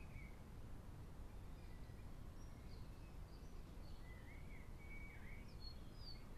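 Faint birdsong: scattered short, wavy whistled notes and chirps from small birds, with a run of clearer warbling notes about four to five seconds in, over a steady low background noise.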